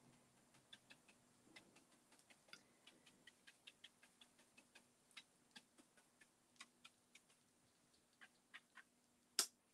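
Faint, irregular ticks and light taps of a paintbrush dabbing paint onto the sheet-metal side of a file cabinet, a few per second, with one sharper click near the end.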